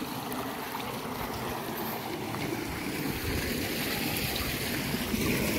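Water rushing along a concrete irrigation channel, a steady wash that grows slowly louder.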